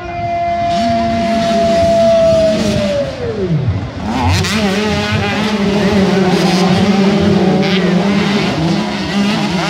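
A pack of motocross dirt bikes accelerating hard off the line and climbing the track, many engines revving together. Before they arrive, one steady high note holds and then drops away steeply about three and a half seconds in.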